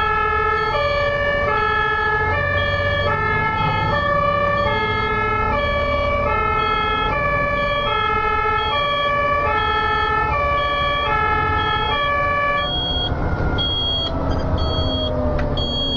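German ambulance two-tone siren, alternating between two pitches about every 0.6 seconds over the low rumble of road traffic. About thirteen seconds in, the lower tones drop away, the siren thins, and a slowly falling tone comes in.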